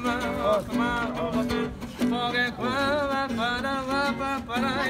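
A man singing a song to a strummed classical guitar.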